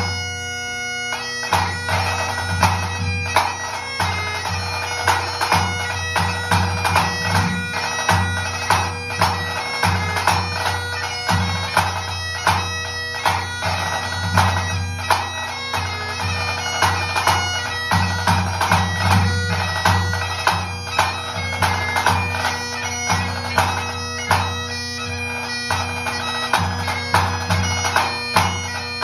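Great Highland bagpipe playing a hornpipe over its steady drones, with a tenor drum and a snare drum striking in time. A fast drum roll opens it, then regular low tenor-drum beats run under the tune.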